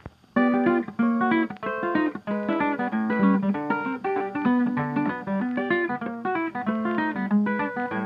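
Background music led by a plucked guitar playing quick, closely spaced notes, starting about half a second in.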